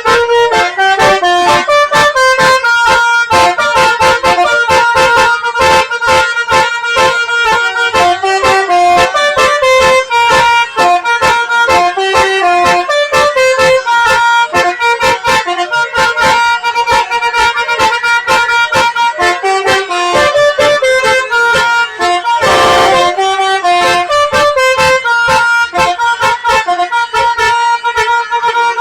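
Tour bus's basuri musical horn, a set of air-horn trumpets switched in sequence, playing a fast tune of short stepped notes. A brief rush of noise cuts across the tune about three-quarters of the way through.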